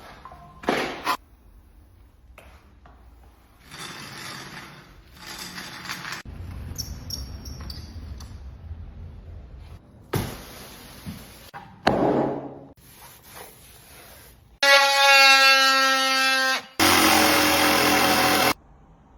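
Wood-flooring work: knocks and scraping on wood boards, then near the end a power tool runs with a steady pitched whine for about two seconds, followed by a louder rushing burst lasting about a second and a half.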